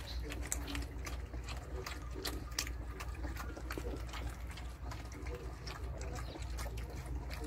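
A litter of 26-day-old German shepherd x Belgian puppies lapping and slurping from a shared bowl of liquid food, a rapid, irregular run of small clicks.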